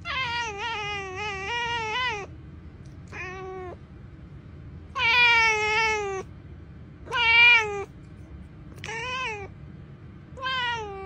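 Ginger cat meowing six times, the first a long, wavering call of about two seconds and the rest shorter.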